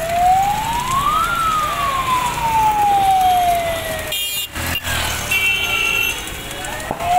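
Fire engine siren wailing: the pitch climbs for about a second, then falls slowly for about three. The sound breaks off briefly about four seconds in, and a new rise begins near the end.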